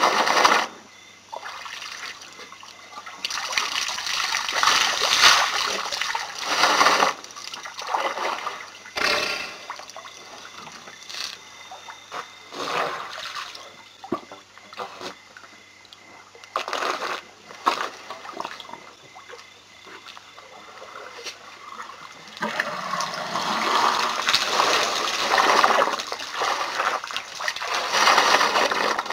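Elephants drinking at a waterhole: irregular splashing and trickling as water is drawn up in trunks and poured into mouths, busiest in the last few seconds. A steady low hum runs underneath.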